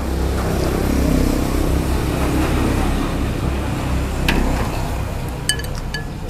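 A motor vehicle's engine running close by, a low pitched rumble that swells over the first second and then holds. A sharp click comes about four seconds in, and a few short ringing clinks of utensils against ceramic bowls come near the end.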